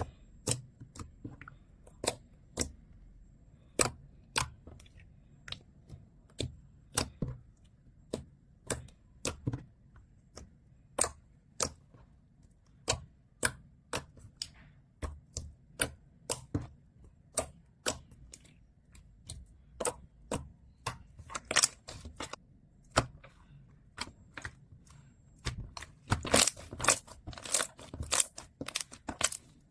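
Foam slime being pressed and worked by hand, giving sharp irregular clicks and pops from trapped air, about one or two a second. They come faster and louder near the end.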